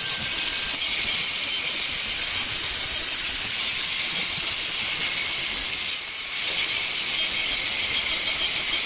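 Handheld electric angle grinder with a polishing pad running against a granite slab's edge: a steady high hiss of the pad rubbing the stone over the motor's whine, dipping briefly about six seconds in.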